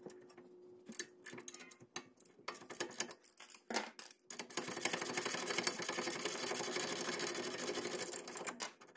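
Scattered metallic clicks and taps as a wrench is set on a brake caliper bracket bolt. From about four and a half seconds in comes a fast, even run of clicking, a ratcheting wrench spinning a loosened 18 mm bolt out, which stops shortly before the end.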